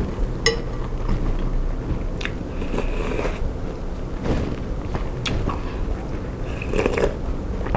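Close-miked chewing of bakso meatballs, with sips of broth from a spoon and a few sharp clicks along the way.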